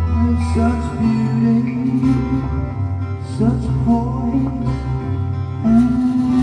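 Recorded band music playing back from a vinyl single on a turntable: an instrumental passage with guitar over sustained bass notes, and sharp hits every second or two.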